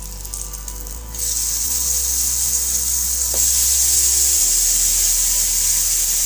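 Brinjal slices coated in a hung-curd tandoori masala marinade, shallow-frying in oil on a flat iron tawa, sizzling steadily. The sizzle grows louder about a second in, as slices are turned over with a wooden spatula.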